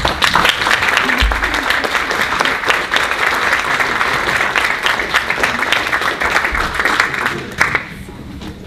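Audience applauding, a dense patter of clapping that stops shortly before the end.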